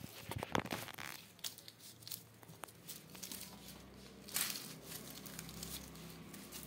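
Kittens scrambling over a pile of red onions: the dry, papery onion skins crinkle and rustle in irregular bursts, with small clicks and knocks as the onions shift. The longest rustle comes about four and a half seconds in.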